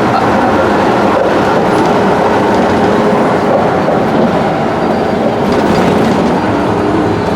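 Road noise inside a moving RV on rough pavement: a steady, loud rumble of tyres and drivetrain, with the cabinets and dishes rattling over the bumps.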